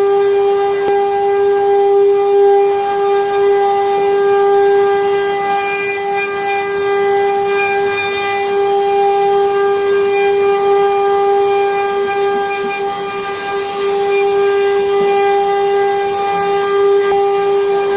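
Spindle of a 4-axis CNC wood-carving router running with a steady, unbroken high whine, one held tone with overtones.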